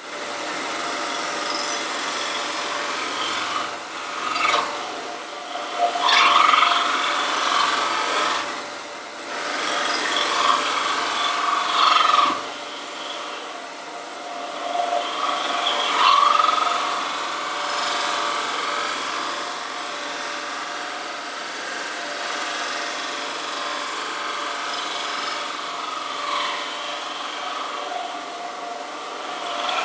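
Wood lathe running while a heavy Simon Hope super scraper cuts the face of a spinning wooden blank. A steady lathe hum sits under a rasping scrape that swells and fades with each pass of the tool, loudest a few times in the first half.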